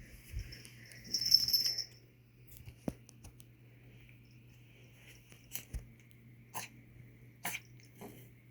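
A cat with the sniffles sneezing: a loud hissy burst about a second in, then several short, sharp sneezes roughly a second apart, over a steady low hum.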